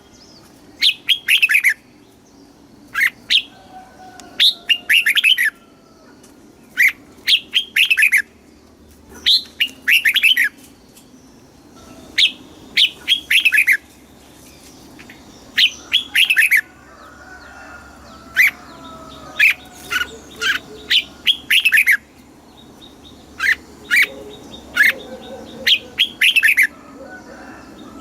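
Red-whiskered bulbul singing: short, loud phrases of quick falling whistled notes, repeated every second or two.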